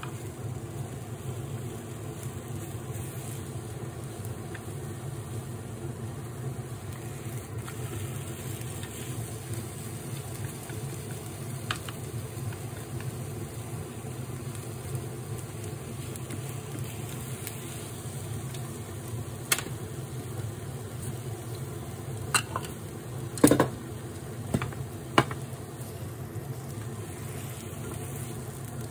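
Tamagoyaki egg cooking in an oiled rectangular pan on an induction hob: a steady low hum with faint frying. Near the end, about five sharp clicks as wooden chopsticks tap against the pan.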